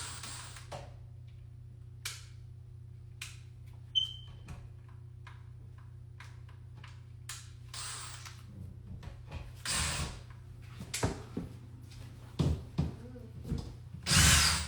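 Scattered clicks, knocks and rustling of small objects being handled, with one sharp metallic clink that rings briefly about four seconds in, over a steady low hum.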